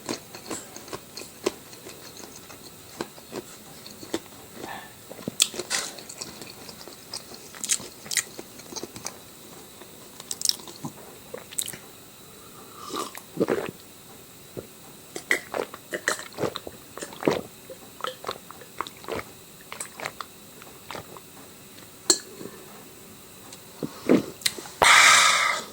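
A person eating close to the microphone: chewing and biting with scattered crunches and wet mouth clicks. A loud, short noisy sound comes just before the end.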